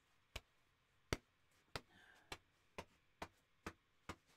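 A run of faint, sharp clicks at about two a second, coming slightly faster toward the end, over near silence.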